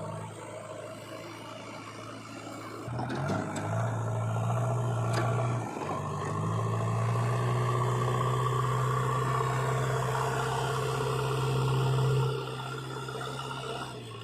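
Heavy diesel engine of an earthmoving or farm machine running steadily. It gets louder as it works about three seconds in, dips briefly near six seconds, and eases back down near the end.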